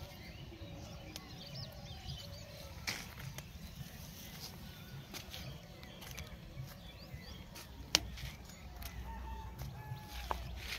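Outdoor ambience of scattered small bird chirps and calls over a low steady rumble, with a sharp click about eight seconds in and a smaller one near the end.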